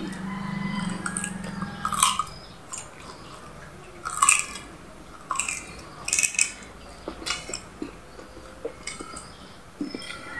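Close-up sounds of a person chewing food eaten by hand, in irregular separate bites and smacks, a few of them sharp and loud. A steady low hum runs under the first two seconds.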